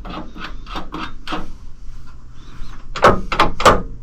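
A few soft knocks, then a quick cluster of four loud, sharp knocks or bangs about three seconds in.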